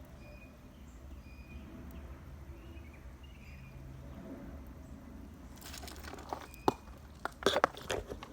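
Faint, brief bird chirps over low outdoor background, then about two-thirds of the way in, footsteps start crunching on the trail surface.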